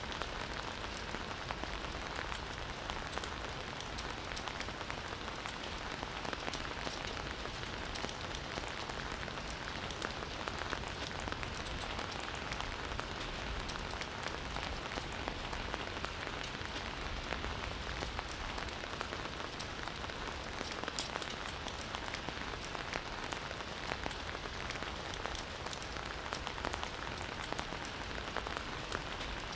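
Campfire burning with a steady crackle of many small pops and snaps.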